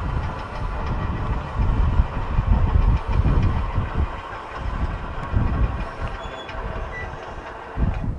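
CSX GP40-2 diesel-electric locomotive approaching slowly, its engine running with a low, uneven rumble.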